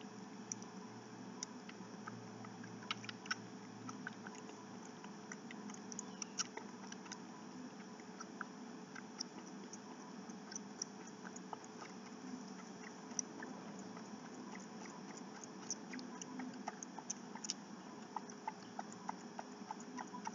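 Kittens suckling from a milk feeding bottle: faint, irregular little clicks and smacks throughout, over a faint steady hum.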